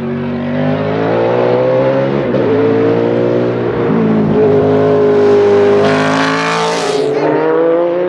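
Hill-climb race car engine accelerating hard uphill toward the listener. Its pitch climbs and drops back at each gear change, about twice in the first four seconds. It grows louder and is loudest as the car passes close, about six to seven seconds in, where the pitch falls away.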